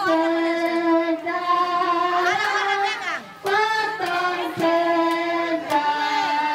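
A group of children and women singing a song together in long held notes, with a brief break about three seconds in.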